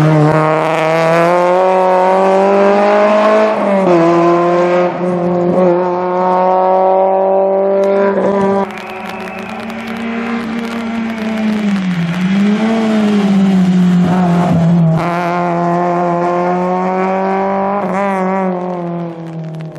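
Fiat Seicento rally car's engine at full throttle and high revs, its pitch climbing as it pulls and dropping briefly at gear changes about four and twelve seconds in. The sound breaks off suddenly and jumps to a new shot of the car near nine and again near fifteen seconds in.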